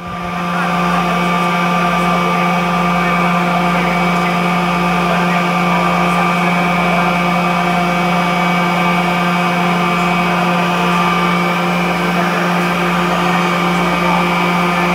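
Seawater desalination plant machinery running: the electric motors and high-pressure pumps of the desalination units give a loud, steady hum with several constant tones, a low one and a higher whine.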